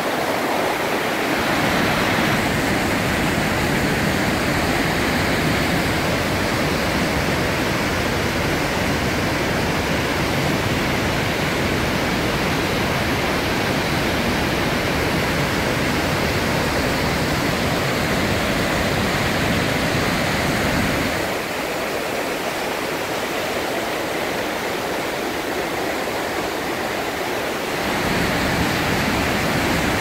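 Låtefoss waterfall: a loud, steady rush of white water pouring over rocks and through rapids. For several seconds about two-thirds of the way through, the deep low rumble drops away and the hiss of the spray carries on.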